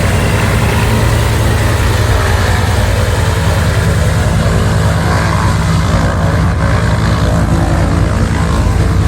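Small propeller aircraft engine running with a steady, loud drone.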